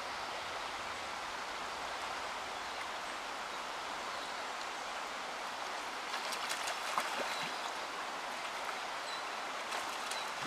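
Shallow river current rushing steadily over riffles. From about six seconds in come short sharp splashes as a hooked trout thrashes at the surface.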